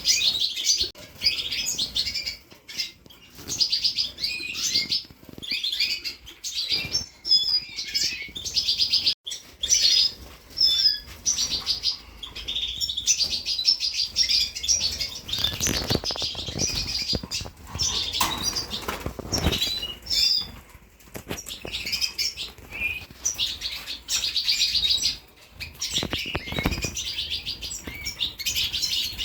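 Canaries chirping and twittering in quick, busy trills, with a few brief wing flutters around the middle and near the end.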